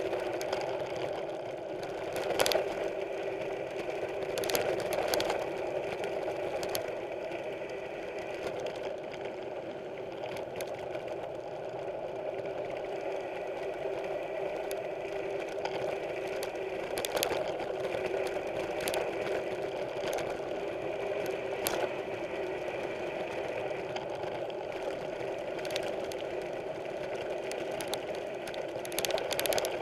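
Mountain bike coasting: the rear freewheel hub buzzing steadily, with scattered knocks and rattles as the bike rides over bumps.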